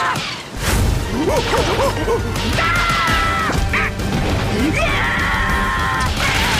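Cartoon soundtrack of rain falling steadily under high, drawn-out squealing cries from animated larva characters, with shorter wavering squeaks about a second in.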